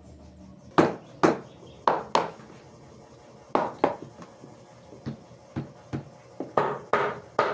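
A series of sharp hammer blows on wood, a dozen or so, often struck in quick pairs with short pauses between.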